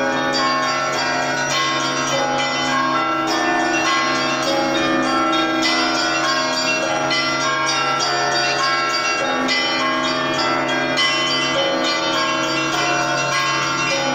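Russian church bells ringing together: smaller bells struck in quick, overlapping succession over the low, sustained hum of a large bell.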